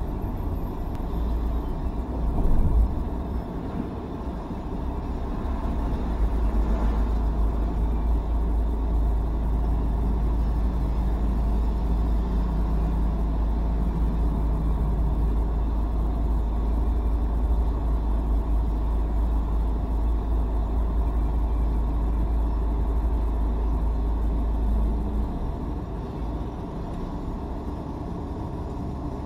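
Steady low road-vehicle rumble heard inside a car's cabin, easing near the end, with a brief louder bump a few seconds in.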